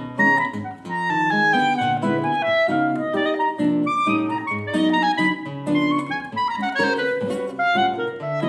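Clarinet and classical guitar playing a fast Brazilian choro: the clarinet runs through quick melodic notes, some in falling runs, over full, chordal guitar accompaniment.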